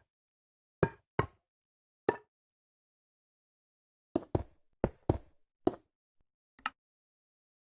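About ten sharp knocks on a hard object, each with a short ring, coming singly and in quick pairs at an irregular pace.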